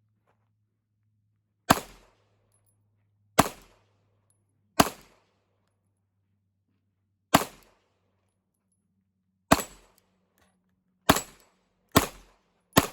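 Glock 17 Gen 5 9mm pistol firing eight shots at uneven intervals of one to two and a half seconds, the last three coming in quicker succession near the end.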